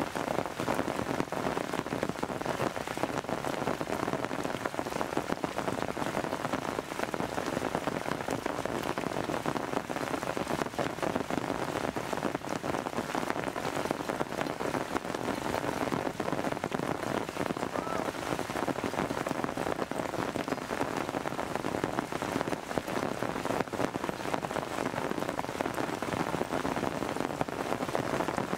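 Steady rain falling, a dense patter of individual drops.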